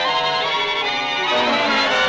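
Orchestral background music, strings prominent, with several instruments playing together.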